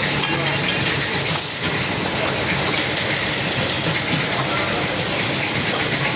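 Toyota XLI engine running with a steady, rapid pulsing exhaust noise: the sign of an exhaust leak at a faulty exhaust manifold.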